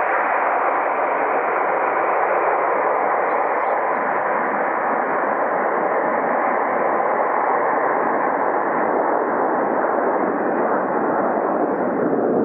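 Airbus A321-231's twin IAE V2500 turbofan engines heard from the runway side as the airliner rolls out after landing: a loud, steady jet roar.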